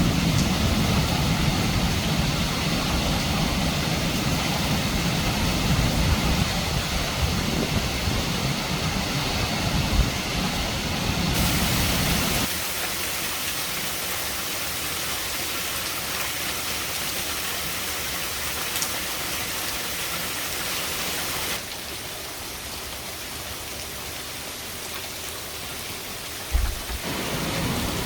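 Steady rain falling, with a low rumble under it for the first dozen seconds that then stops abruptly. The rain's character shifts suddenly a few times, and there are two short thumps, one about ten seconds in and one near the end.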